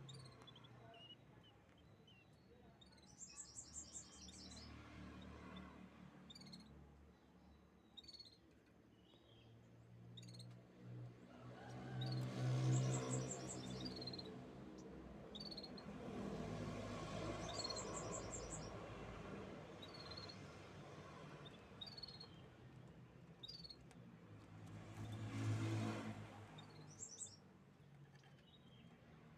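Canaries chirping, with short high chirps throughout and several rapid trills. A low hum underneath swells twice, about twelve seconds in and near the end.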